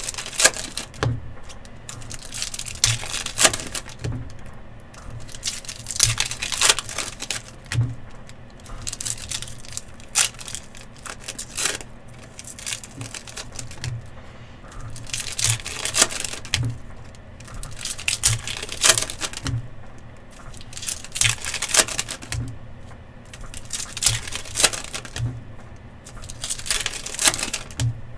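Trading card pack and box wrappers being torn open and crinkled, in bursts of crackling about every two to three seconds, with light knocks in between.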